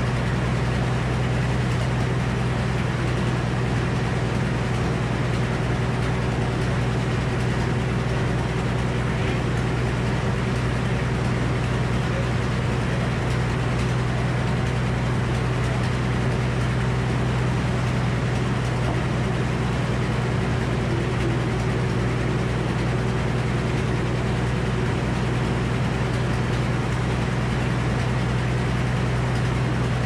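Old Frick circular sawmill running: the big head saw and its drive give a loud, steady hum with a strong low tone.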